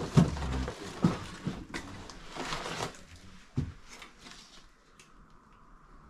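Irregular footsteps, knocks and rustling as someone moves across a floor littered with boxes and debris, quieter in the last couple of seconds.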